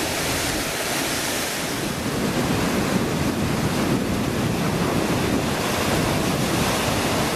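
Whitewater rushing down a steep granite slide and drop: a steady, even rushing noise with no letup.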